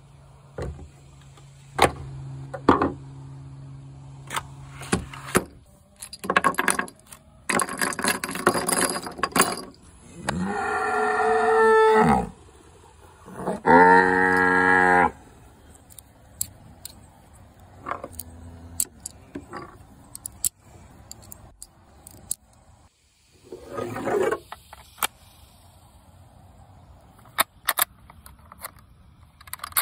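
Cattle mooing: two long moos about ten and fourteen seconds in, the second the loudest, and a shorter low moo later, among scattered clicks and rustling. Near the end come quick, sharp clicks.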